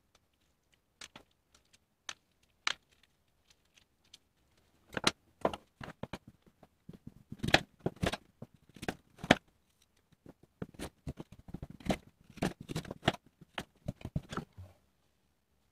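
Kitchen knife cutting an apple on a plastic cutting board, with the pieces handled. There are a few scattered clicks at first, then from about five seconds in a busy run of knocks and cuts that stops shortly before the end.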